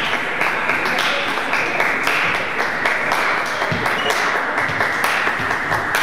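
Spectators in a sports hall applauding: a steady, dense patter of many hands clapping.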